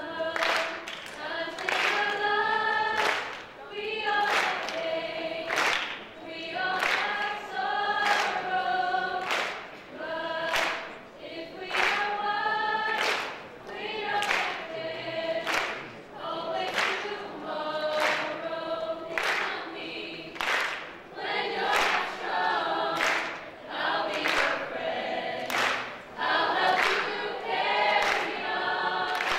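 Large student choir singing a song together in phrases a few seconds long, with a sharp, regular beat keeping time under the voices.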